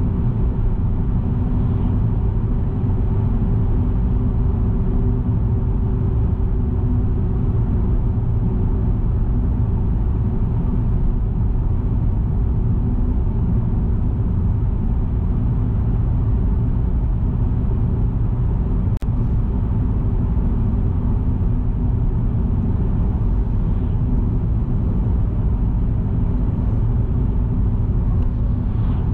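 Steady low rumble of a moving vehicle, with a constant hum running through it. There is one brief click about 19 seconds in.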